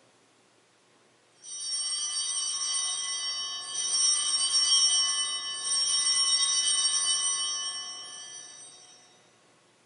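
A set of altar bells (Sanctus bells) shaken in three rings, a bright cluster of high ringing tones that fades out near the end. The ringing marks the elevation of the consecrated host at Mass.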